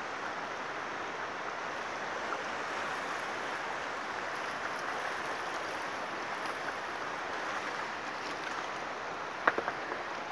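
Steady rush of river water flowing past a rocky bank, with a quick cluster of three or four sharp clicks about nine and a half seconds in.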